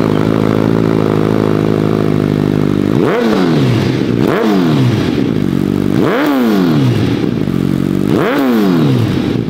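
Suzuki Hayabusa's 1340 cc inline-four, breathing through an aftermarket Akrapovic exhaust, idles steadily for about three seconds. Then it is blipped four times, each rev rising sharply and dropping straight back to idle.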